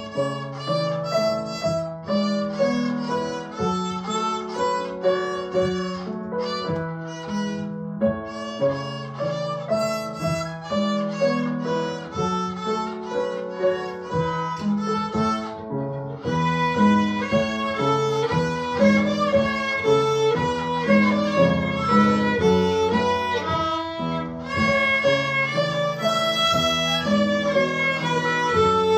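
A child's violin playing a tune with upright piano accompaniment. About halfway through, two more violins join in and the music gets louder.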